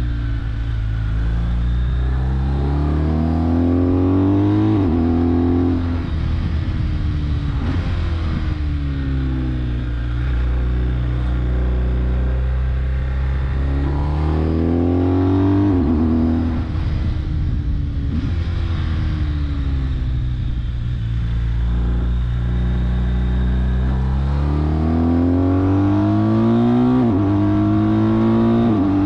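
BMW R1250GS Adventure's boxer twin engine pulling hard under acceleration, its revs climbing and then dropping sharply about three times at gear changes and throttle roll-offs, upshifting from second to third, over steady wind rush.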